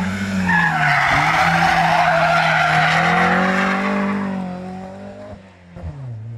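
BMW rally car drifting sideways through a hairpin: the engine is held at high revs, its note wavering with the throttle, under a loud tyre squeal that lasts about four seconds. The squeal then stops and the engine note falls away as the car drives off.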